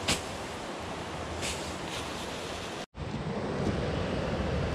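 Steady rushing of a mountain torrent, with a short crackling rustle of an armful of ferns just after the start. A brief drop-out near three seconds, after which the rush is lower and fuller.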